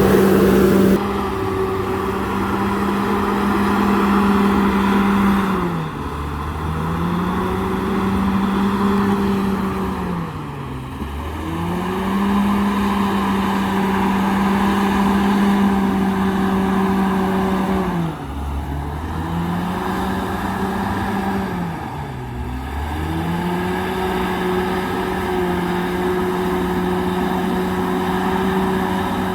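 Komatsu D68ESS crawler bulldozer's diesel engine running hard, its pitch sagging and recovering about five times as the load on the machine changes.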